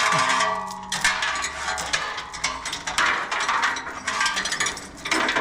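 Hand ratchet worked in repeated strokes, rapid metallic clicking in several bursts.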